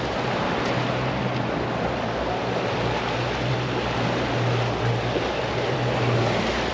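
Mercury Verado 350 outboard running steadily at speed with the boat under way, a constant low hum under the rush of water from the hull and wake and the wind.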